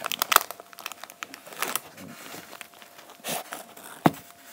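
Thin clear plastic tub crinkling and crackling as it is handled, with irregular clicks and one sharp, loud click about four seconds in.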